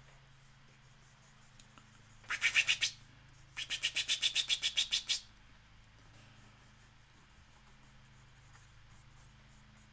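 A stylus scratching on a drawing tablet while drawing wavy scalloped lines. There are two runs of rhythmic strokes at about eight a second: a short one about two seconds in and a longer one a second later. A faint steady low hum lies underneath.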